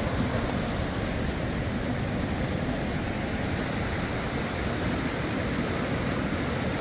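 Steady rushing of a creek and small waterfall running high with spring runoff.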